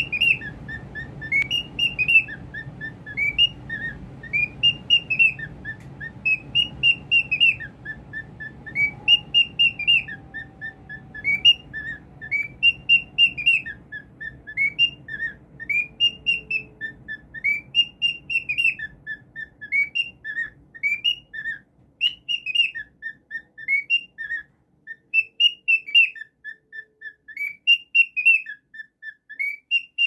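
Grey cockatiel whistling the same short phrase over and over: rising notes and quick runs of short notes, repeating about every two seconds.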